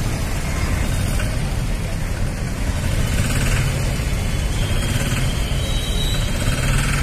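Busy street traffic: vehicle engines running and passing in a steady, loud mix with a heavy low rumble.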